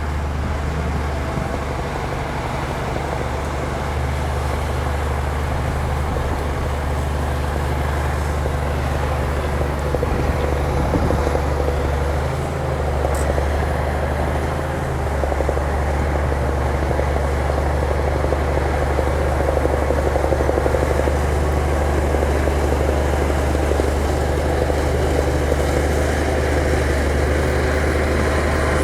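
Diesel engine of heavy earthmoving equipment running steadily with a deep, even drone, growing slightly louder.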